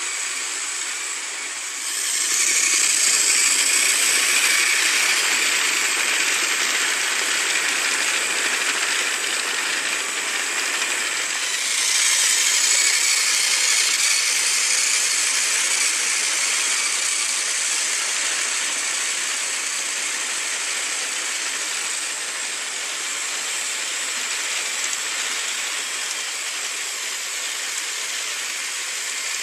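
Battery-powered Trackmaster Gordon toy engine running on plastic track with a long train of coaches: a steady motor whir and wheel rattle. It grows louder about two seconds in and again around twelve seconds in.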